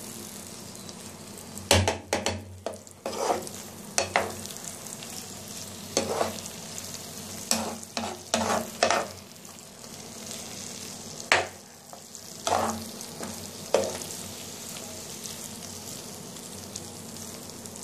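Potatoes frying and sizzling in oil in a pan while a steel spoon stirs them. The spoon scrapes and clinks against the pan in bursts of strokes, then stops a little after two-thirds of the way through, leaving the steady sizzle.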